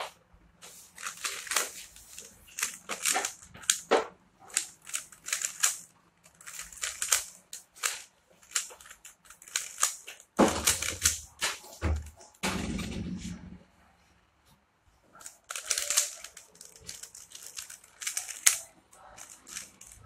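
Plastic Rubik's cube layers being turned in quick runs, a rapid clatter of clicks and clacks with short pauses between the runs, plus some duller handling knocks around the middle.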